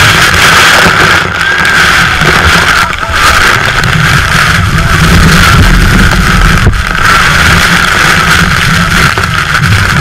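Speedboat engines running at speed close under a waterfall, loud and steady, mixed with the roar of falling water and spray and wind buffeting the microphone.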